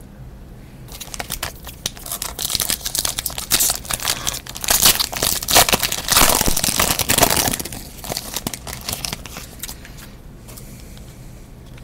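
Foil wrapper of a 2014 Platinum football trading card pack being torn open and crinkled by hand: dense crackling that starts about a second in, is loudest in the middle, and dies down near the end.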